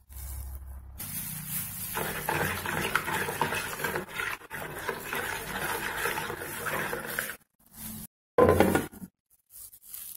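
A spoon stirring dry yeast into milk in a plastic bowl, a continuous stirring noise for several seconds. It breaks off, followed by a short, louder bump about eight seconds in.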